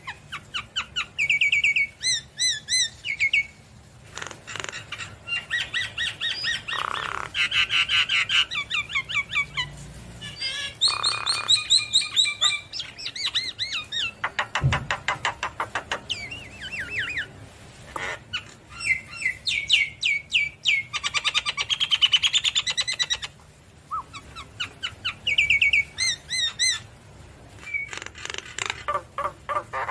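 Javan myna singing vigorously: a varied run of rapid repeated chirps and trills mixed with scratchy, rasping notes, phrase after phrase with short pauses between.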